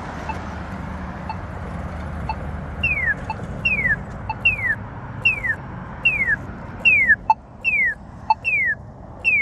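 Polara iNS accessible pedestrian signal push-button station ticking its locator tone about once a second. About three seconds in, a repeated falling chirp joins it, about one every 0.8 s, and stops near the end.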